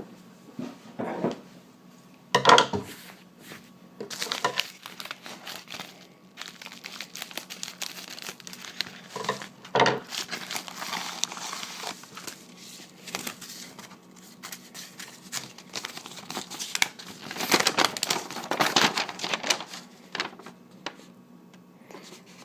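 Packaging crinkling and tearing as a mailed package of trading cards is cut and pulled open by hand, in irregular bursts, the loudest about two and a half seconds in and again in a long run near the end.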